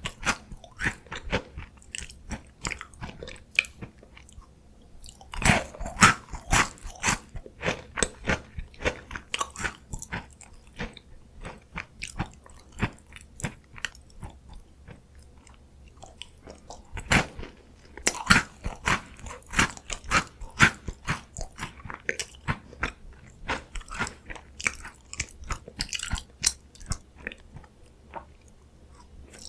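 Close-miked biting and chewing of crunchy Korean chocolate biscuit snacks: a dense run of crisp crunches. They come in bouts, loudest about six seconds in and again from about seventeen to twenty-one seconds.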